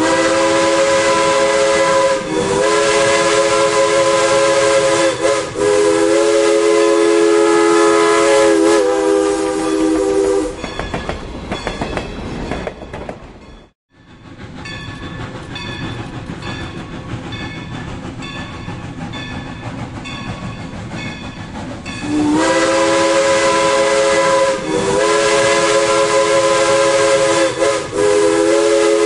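Steam locomotive chime whistle sounding several notes at once in a series of blasts, a group of four in the first ten seconds and another group from about 22 seconds in. Between the two groups is the quieter rhythmic rumble and clatter of the passing train, with a brief dropout near the middle.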